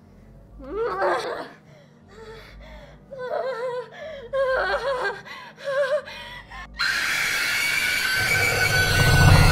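A woman's distressed, wavering vocal cries in short uneven bursts. About seven seconds in, a loud sustained drone of horror-film score cuts in abruptly and builds, with a deep rumble joining near the end.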